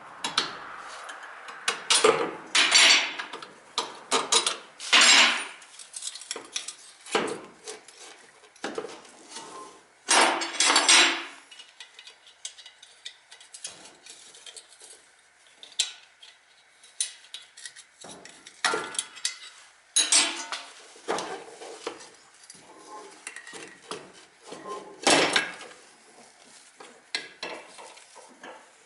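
Metal tools and parts clinking and clanking irregularly, with sharp ringing knocks, as work is done on a car.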